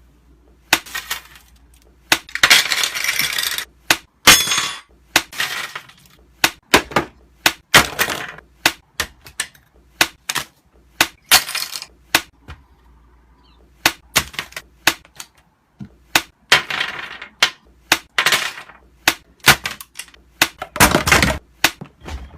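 Hard plastic clattering and cracking from a computer keyboard and its keys: dozens of sharp knocks, some in quick clusters, with several longer rattling stretches lasting up to about a second and a half.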